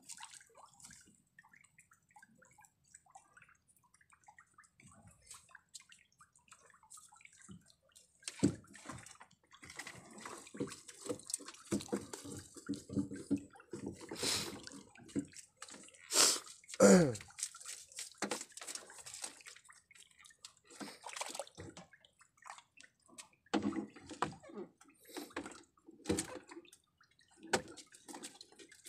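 Seawater dripping and splashing off collapsible net traps as they are hauled up out of the sea into a small wooden boat, with irregular knocks and rustles of the wet traps being handled and stacked. It is busiest in the second half, with the loudest splashes a little past the middle.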